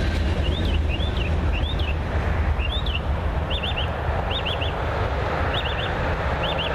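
Steady low rumble of interstate highway traffic with wind noise, while a songbird repeats short high chirping phrases about once a second.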